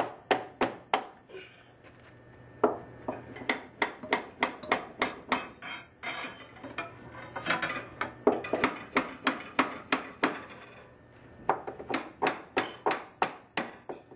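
A hammer striking a copper pipe brace over and over, driving it tight between the floor joists: quick runs of sharp taps, about three to four a second, broken by short pauses.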